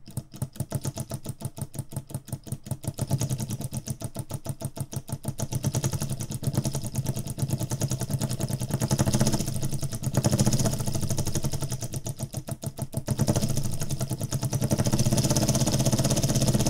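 3D-printed PLA single-cylinder solenoid engine running: the solenoid plunger clacks with each pull as the crank and flywheel turn. The clacking speeds up over the first few seconds into a fast, even rattle and grows louder toward the end.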